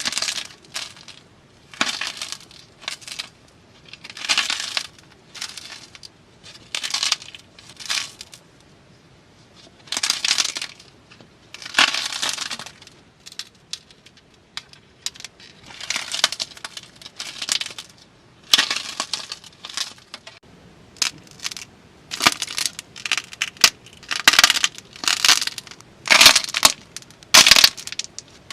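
Slime being squeezed and pressed by hand, giving a string of short, crisp squishing and popping bursts that come faster and closer together in the last third.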